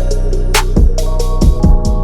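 Electronic background music with a deep bass line, steady held notes, and a beat of drum hits, including a sharp snare stroke about half a second in.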